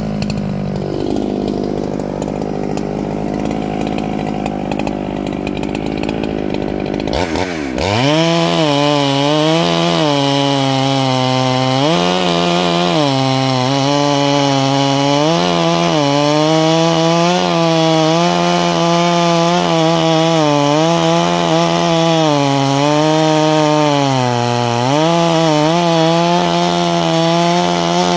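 Husqvarna 395 clone chainsaw, a two-stroke, idling, then revved to full throttle about seven seconds in and cutting through a large log. Its engine pitch dips and recovers every few seconds as the chain bites under load.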